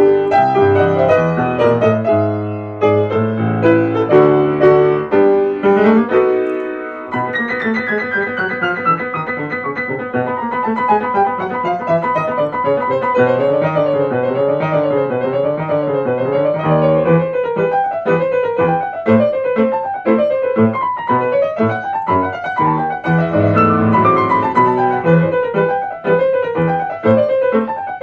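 Solo piano playing: full, heavy chords for the first several seconds, then flowing arpeggios that ripple up and down over sustained notes.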